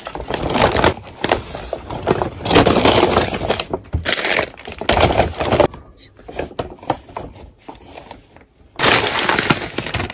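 Paper bags rustling and crinkling as items are pulled out of a paper carry bag, with a plastic drink cup handled. Quieter a little past the middle, then loud crinkling again near the end as a small paper pastry bag is drawn out.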